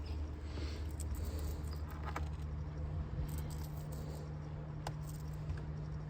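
Faint scratching and a few light clicks of small hand tools prying at an iPad's screen adhesive, over a steady low hum.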